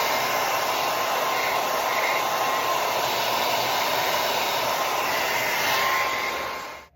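Handheld hair dryer running steadily with a loud, even blowing hiss and a faint steady whine, switched off just before the end.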